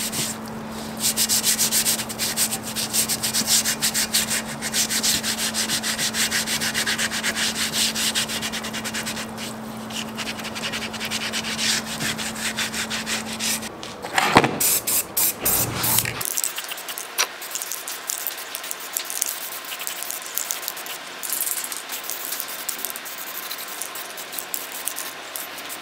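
Abrasive scrubbing pad rubbing back and forth over the wet bed of a rusted lathe in a tub of rust remover, quick steady scrubbing strokes over a steady low hum. The hum and scrubbing stop about 14 seconds in, and the rest is quieter, with short hisses like an aerosol spray can.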